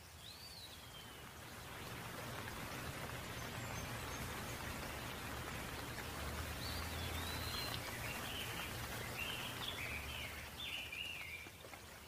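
Steady rain falling, growing louder about two seconds in. A bird gives one short call near the start, then a run of short chirps in the second half.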